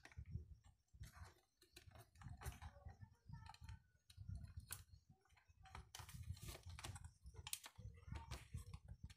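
Faint, irregular clicks and taps of hard plastic parts and wiring being handled: a small plastic counter module and push button being fitted into a plastic enclosure.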